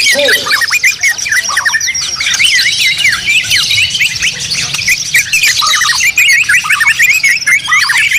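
Many songbirds singing at once in a dense, unbroken chorus of overlapping whistles, trills and chirps.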